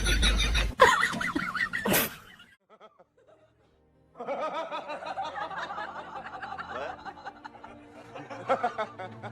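A person laughing for about two seconds, then a short silence, then background music that runs on steadily.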